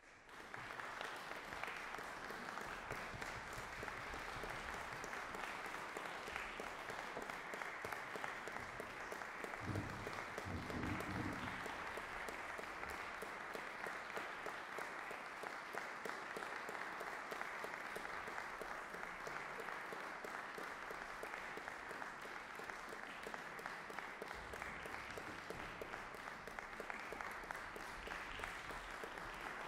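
Audience applauding, starting suddenly out of silence and holding steady, with a brief louder low sound about ten seconds in.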